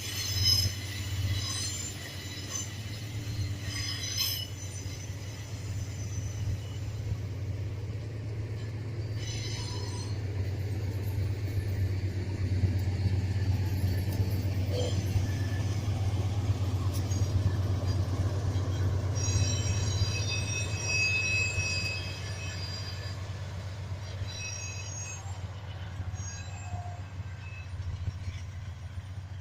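Train rolling past with a steady low rumble, its wheels squealing in high-pitched bouts several times as the cars go by; the sound fades near the end.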